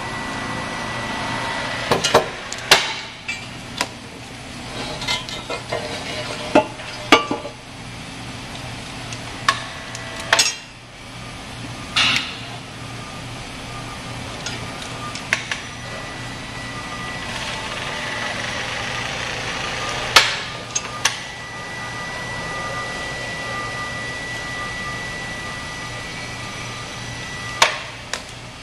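Irregular metal clinks and knocks as a ductile iron centrifugal pump case is handled and fitted onto the pump, about a dozen sharp hits spread out. Under them runs a steady shop hum, with a thin high whine.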